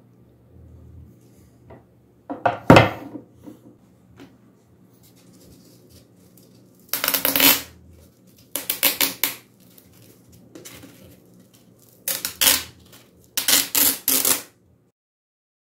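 A sharp clatter near the start, then a sheet of P320 abrasive sandpaper being creased and torn in several short rasping rips.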